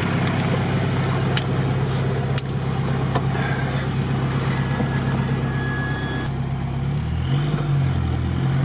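Off-road vehicle's engine running steadily under load as it drives into a bog, heard from inside the cab, with a few sharp knocks and rattles from the body. About seven seconds in the engine note changes and rises as the vehicle starts to struggle in the mud.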